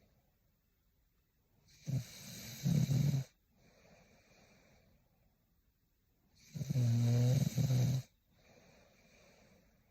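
A young woman snoring in her sleep: two loud, low-pitched snores, about two and six and a half seconds in, each lasting over a second, with softer breaths between them.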